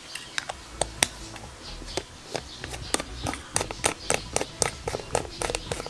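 Sharp metallic clicks and taps from small carburetor parts and hand tools being handled and fitted, in an irregular run that gets busier in the second half.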